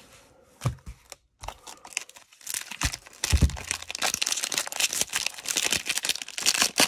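Cellophane wrapper of a Panini Prizm basketball cello pack crinkling and tearing as it is ripped open by hand. The crinkling starts about two and a half seconds in, after a few soft knocks.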